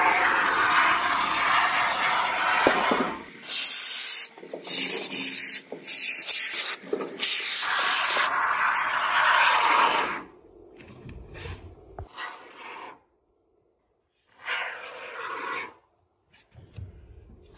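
Rough rubbing and scraping noise in long stretches with brief breaks for about the first ten seconds, then a few shorter separate bursts.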